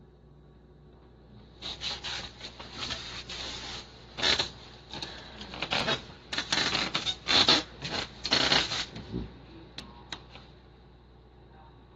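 Blankets and bedding in a whelping box rustling and scraping in irregular bursts for about seven seconds, with two short sharp clicks near the end.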